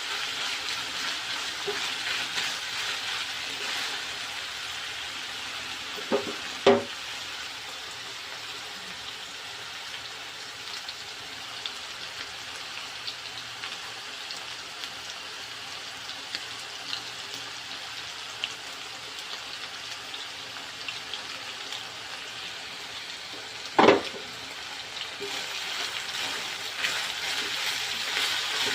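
Ground meat for giniling frying in a pan: a steady sizzle that eases off in the middle and grows again near the end. Two sharp knocks stand out, one about six seconds in and one near the end.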